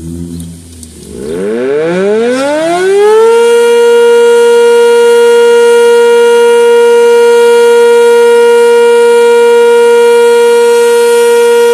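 Sentry 10V electromechanical warning siren winding up about a second in, its pitch rising for about two seconds, then holding one steady, loud tone: the Alert signal of a siren test.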